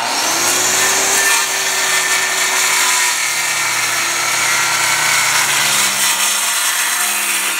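DeWalt corded circular saw cutting through a slab of oriental chestnut. The motor's tone sinks gradually in pitch as the blade works through the wood, and the saw cuts off at the end.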